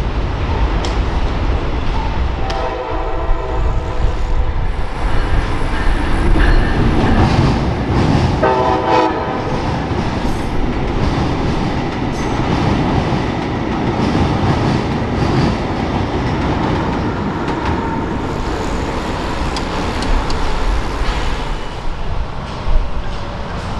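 A Brightline passenger train running past with a steady rumble, sounding its air horn twice: a longer chord-like blast a few seconds in and a shorter one about nine seconds in.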